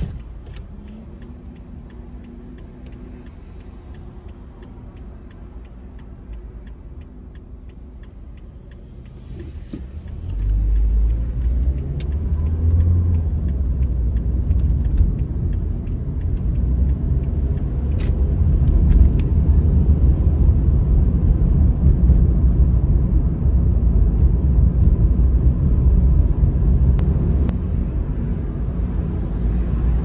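Car interior: a quiet steady hum while stopped, then about ten seconds in a much louder low rumble of engine and tyre noise as the car pulls away and drives on.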